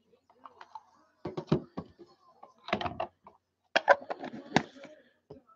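Hands handling a small cardboard trading-card box and the cards from it, a scatter of sharp taps and clicks as the box is opened and the cards are set down.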